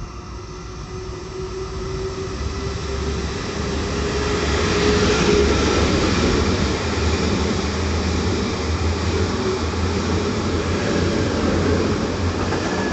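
A train running through a station, its rolling noise building up over the first few seconds and staying loud as it passes. A faint whine rises slightly in pitch through the first half.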